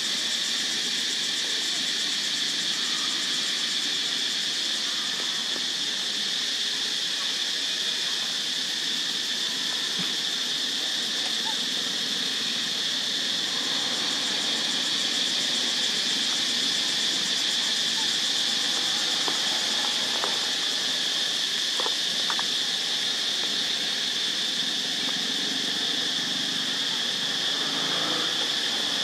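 Steady, high-pitched chorus of insects, unbroken and even in level.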